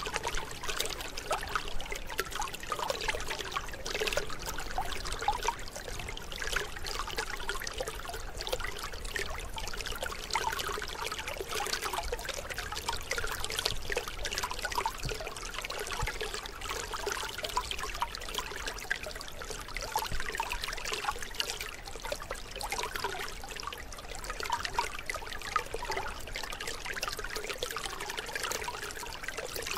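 Shallow canal water trickling and splashing steadily around a woven bamboo fish trap, with small splashes from hands working in the mud and water.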